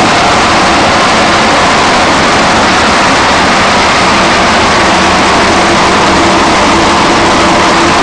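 Organic-waste crusher machine running: a loud, steady mechanical noise with a faint low hum underneath.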